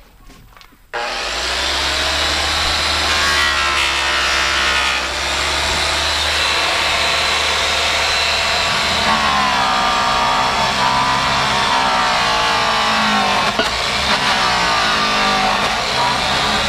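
Electric rotary polisher buffing a truck's paintwork, starting about a second in; its motor whine rises and falls in pitch as it works.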